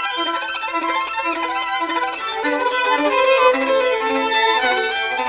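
Two violins playing a fast passage together, one repeating short lower notes under quick higher figures, in a bouncing-bow stroke.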